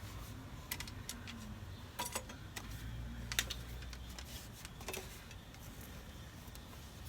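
A few sparse, light clicks and taps from handling a light fixture's metal mounting bracket and screws, over a faint low rumble.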